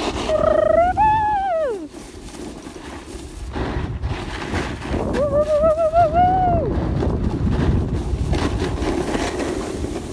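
Wind rushing over a phone microphone and a snowboard sliding over packed snow, with a steady low rumble. Over it a voice sings two drawn-out "whoo" notes that rise then fall, one near the start and a wavering one about five seconds in.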